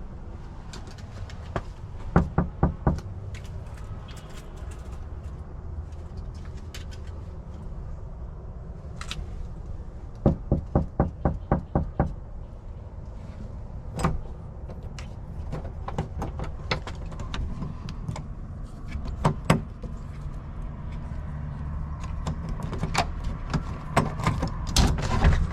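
Knuckles knocking on a door in several rounds of quick raps: about five, then about eight, then a few single knocks, over a steady low rumble.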